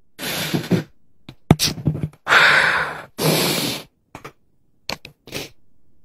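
A man breathing hard and sniffing in several long breathy gusts while holding back tears, then a few faint mouth clicks.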